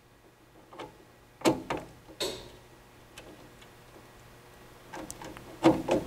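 Scattered light clicks and taps of hands working thin low-voltage wires into the screw terminal strip of a furnace control board: a few about a second and a half in, and a denser run near the end.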